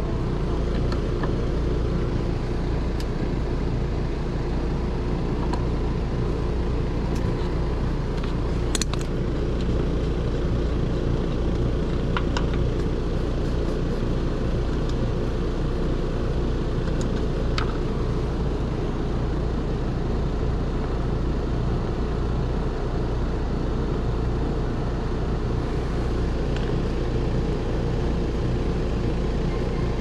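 A 3.5-ton Rheem heat pump outdoor unit running steadily in heating mode, its compressor and fan giving a constant low hum. A few sharp clicks sound over it, about a third of the way in and again a little past halfway, as gauge hoses and probes are handled.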